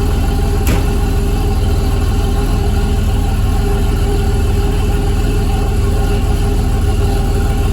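An engine running steadily at an even speed, with one sharp click less than a second in.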